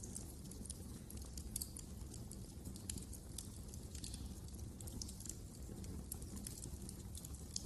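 Wood fire crackling in a fireplace: frequent irregular sharp pops and snaps over a steady low rumble of the flames.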